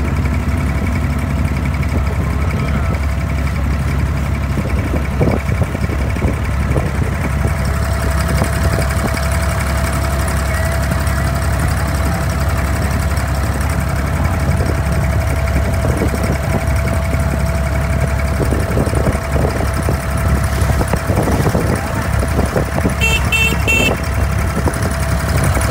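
Steady drone of a traditional wooden ferry boat's (abra's) diesel engine, running at an even pace with a low hum and a steady whine, plus scattered light knocks.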